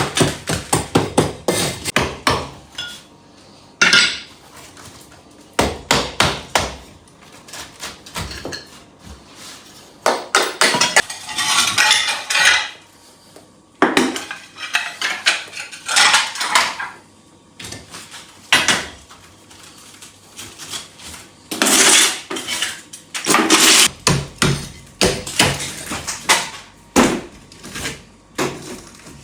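Hard objects being knocked and clattered by hand: quick runs of taps and knocks, with several scraping passes, each a second or more long.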